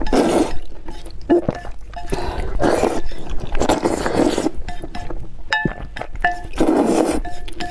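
A person slurping spicy noodles in several long, noisy slurps, with short clinks of chopsticks against the bowl between them.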